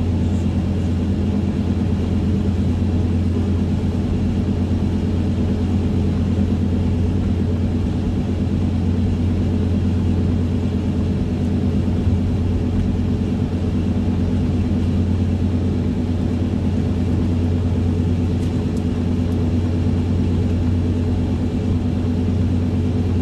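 Car cruising along a highway, heard from inside the cabin: a steady low rumble of engine and road noise.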